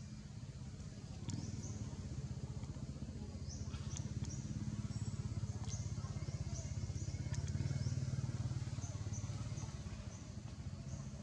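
A motor engine running steadily nearby, growing louder about a second in and easing off near the end, with short high chirps repeating over it.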